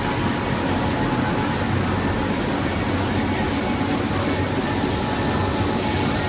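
Laser cutting machine running: a steady mechanical hum with a faint high whine.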